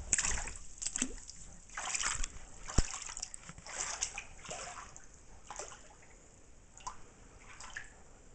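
Standing flood water a few inches deep splashing and sloshing in a series of uneven splashes that thin out toward the end, with one sharp click a little under 3 seconds in.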